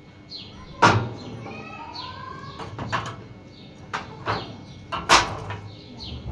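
Several sharp knocks at irregular intervals, the loudest about a second in and about five seconds in, with small birds chirping repeatedly.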